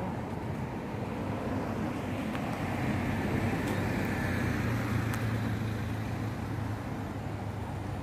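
Road traffic going by: a steady low rumble that swells in the middle and eases off again toward the end.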